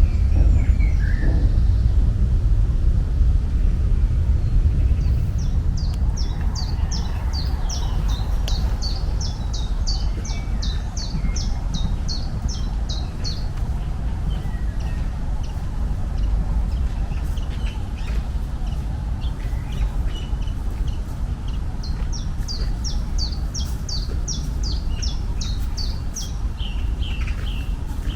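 A songbird repeating short chirps, about three a second, in two long runs, over a steady low outdoor rumble.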